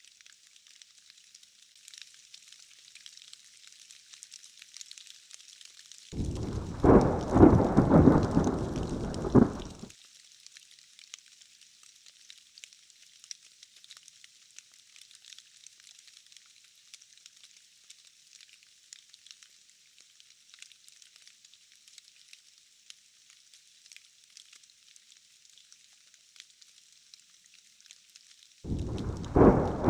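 Steady hiss of falling rain. A loud thunderclap rumbles in suddenly about six seconds in, lasts around four seconds and cuts off abruptly. A second thunderclap begins just before the end.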